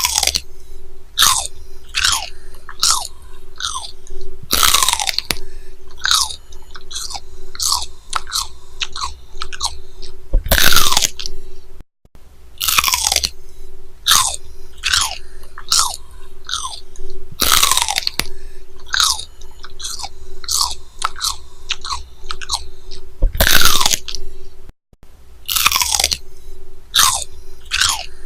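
Crunchy chewing sound effect dubbed over a bearded dragon eating a pinkie mouse: crunches about twice a second, each sliding down in pitch, over a faint steady hum. The effect is a loop that cuts out briefly and starts again twice.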